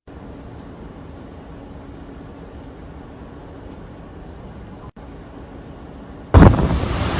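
A steady low rumbling noise, broken off for a moment about five seconds in. Near the end, loud gusts of typhoon wind suddenly start buffeting the microphone.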